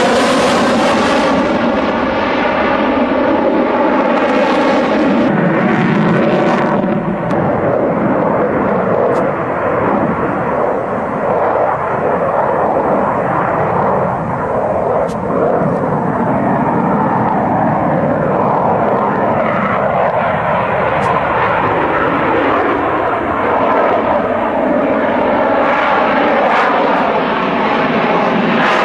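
Loud, steady jet engine noise from a Dassault Rafale fighter flying display manoeuvres. The tone wavers and sweeps as the jet passes, most clearly near the start and the end.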